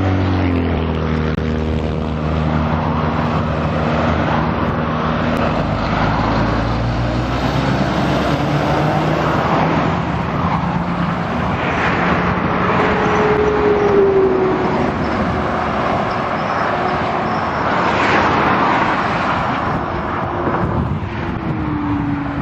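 A diesel lorry with a trailer passing close on a highway, its engine note dropping in pitch as it goes by, over a steady rush of tyre and road noise. Two more vehicles pass later on, each with a falling pitch.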